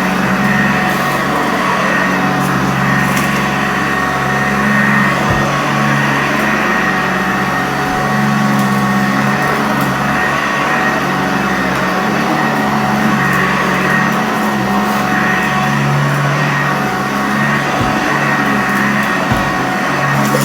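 Sanitaire upright vacuum cleaner running steadily over carpet, its motor and brush roll making a constant hum with a few short clicks.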